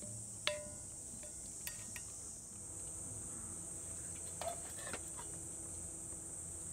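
Steady high chorus of insects, with a few metallic clinks: a sharp ringing clink about half a second in, two light ticks around two seconds, and clinks a little past the middle as a pot lid is lifted off a small camping rice pot with a gripper.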